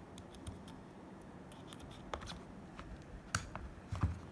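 Scattered small, sharp clicks and taps as a SIM tray is pushed back into an iPhone XR and the phone is handled. The loudest click comes a little over three seconds in.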